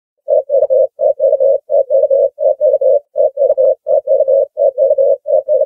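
Ring-necked dove cooing: short, clear coos in groups of three, about eight groups repeated at an even, quick pace, starting a moment in.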